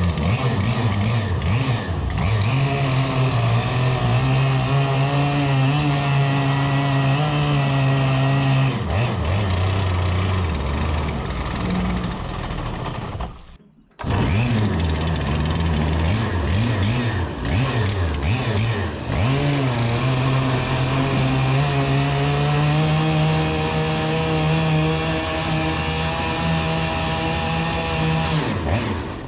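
Stihl 088 chainsaw's two-stroke engine running a surface-drive propeller that churns water in the hull, its pitch wavering and dipping with the throttle. The sound cuts off abruptly about halfway through and starts again, then fades near the end.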